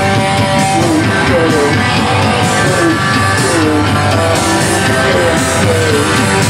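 Loud rock music with guitar and a sung or played melody line.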